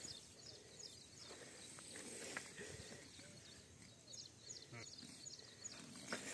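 Faint farm animal sounds, with many short high chirps throughout and a few fainter, lower calls.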